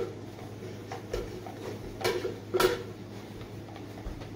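A spatula tapping and scraping against a glass measuring cup as thick shaving cream is scraped out of it, a few light knocks, the loudest about two and a half seconds in.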